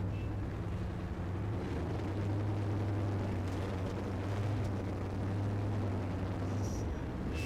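Engine of a modified 4WD competition truck running steadily on an obstacle course, a constant low drone that gets a little louder about a second and a half in.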